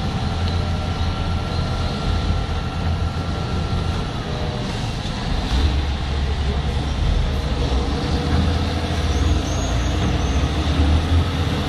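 Volvo EC240 excavator's diesel engine running steadily with a deep rumble. A thin high whine over it stops about four seconds in, and the low engine note grows heavier about a second and a half later.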